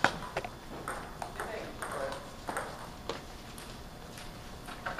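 Table tennis ball clicking sharply off paddles and the Cornilleau 740 table in a doubles rally, hits coming unevenly every half second to a second or so.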